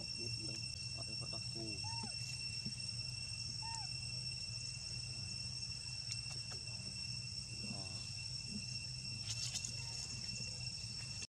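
Steady insect chorus, an even high drone at two pitches, over a low steady rumble, with a few faint short calls that rise and fall in pitch.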